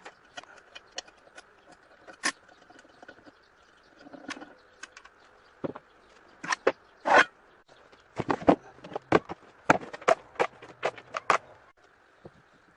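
A run of sharp clicks and knocks at irregular spacing, thickest in a busy cluster from about eight seconds in, as small parts and tools are handled and tapped on the bench.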